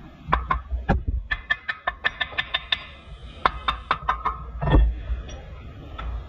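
Sharp metallic clicks and knocks of tools and parts being worked on a Toyota Land Cruiser's front steering knuckle and lower control arm, including a quick run of about seven clicks a second and a heavier thump about five seconds in.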